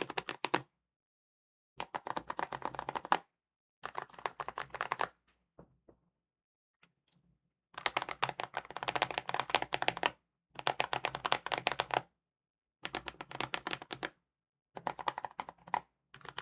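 Typing on a mechanical keyboard fitted with tactile switches: rapid keystroke clacks in about eight short runs, each broken off by a second or so of silence.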